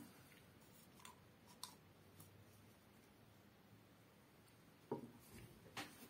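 Mostly quiet handling at a workbench: a few faint clicks, then a sharp knock about five seconds in as a small bottle of leather dye is set down on the bench after its dauber cap is pulled out, followed by another click.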